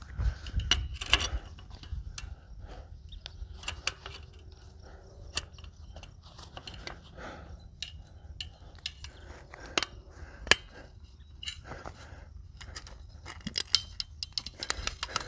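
Fencing pliers working barbed wire: an irregular scatter of sharp metallic clicks and scrapes as the wire is gripped, bent and wrapped around itself. A low wind rumble sits on the microphone underneath.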